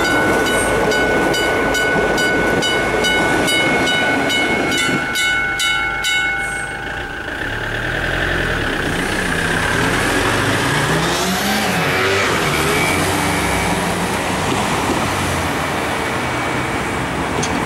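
Italian level crossing's electronic bells ringing in rapid, even strokes as a Minuetto diesel railcar passes. The bells stop about seven seconds in, and road vehicles then start off across the crossing, their engines rising and falling in pitch as they accelerate.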